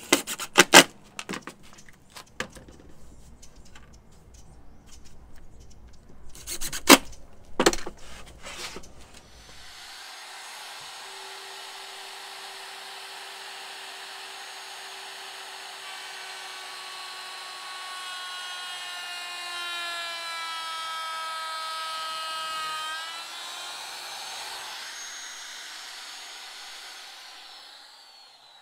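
A cordless drill driving screws into plywood in two short spells of bursts. Then a Porter-Cable router with a bearing-guided pattern bit trims a plywood seat edge to a template, with a steady high whine whose pitch sinks slowly as it cuts and then drops off as it winds down near the end.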